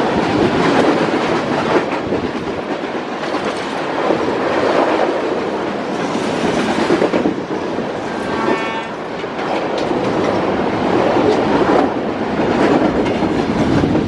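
A freight train of autorack cars passing directly below, its wheels and cars rumbling and clattering loudly over the rails. A brief high tone sounds about eight and a half seconds in.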